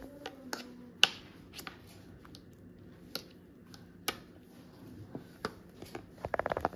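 A metal fork stirring thick mascarpone cream in a plastic container, scraping and tapping against the sides with scattered light clicks and a quick run of ticks near the end.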